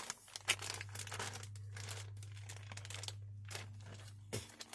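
Plastic crinkling and scattered small clicks from hands working a car's inner door handle assembly loose.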